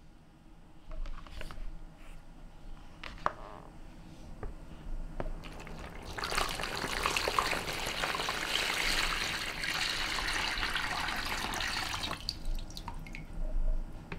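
Water poured from one plastic basin into another: a steady splashing pour starting about six seconds in, lasting about six seconds and then stopping, followed by a few drips from the emptied basin.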